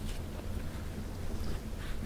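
Wind buffeting the microphone as a steady low rumble, with faint rustling of a cloth being handled near the start and near the end.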